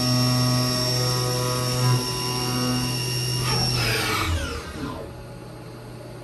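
Haas CNC milling machine's spindle whining steadily while a carbide helical end mill cuts 12L14 steel. About four seconds in, the tool lifts clear and the whine slides down in pitch as the spindle spins down, leaving a lower steady machine hum.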